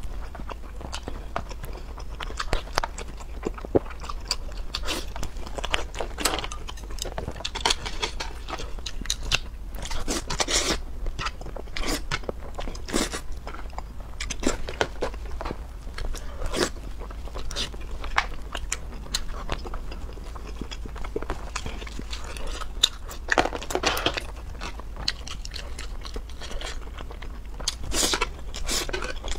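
Close-miked eating: a person chewing spicy noodles and squid with wet mouth clicks, and slurping noodles in a few longer draws, one near the end.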